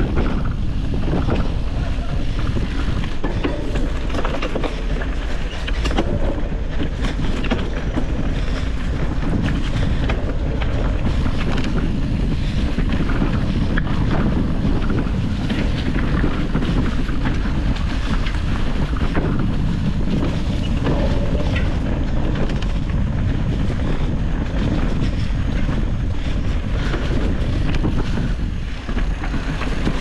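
Wind buffeting the microphone of a mountain bike being ridden on a dirt singletrack trail, with frequent small knocks and rattles from the bike over rough ground.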